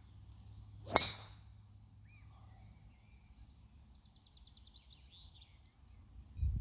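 A golf driver striking the ball off the tee about a second in: one sharp crack with a brief ring. Birds chirp faintly after it.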